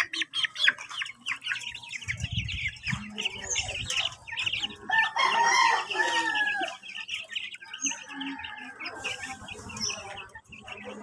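A flock of month-old chicks peeping in quick, high chirps, with louder, lower clucking calls about five to seven seconds in.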